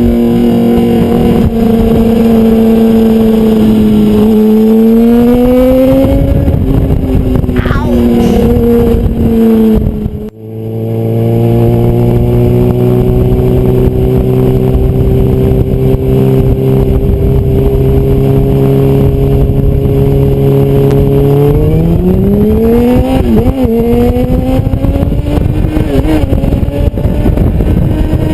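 Sportbike engine running under way, holding steady revs for long stretches and rising in pitch as it accelerates about five seconds in and again near twenty-two seconds. The sound breaks off abruptly about ten seconds in and picks up again at a different, steady pitch.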